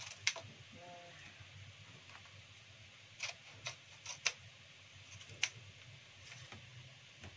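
Banana-leaf pepes parcels being handled and trimmed: a scattered series of sharp, crisp clicks and crackles of stiff leaf, the loudest just after the start and around four and five and a half seconds in, over a faint low hum.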